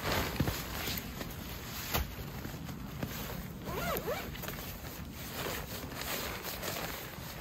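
Rustling and scraping, with a few sharp clicks and a brief squeak about four seconds in.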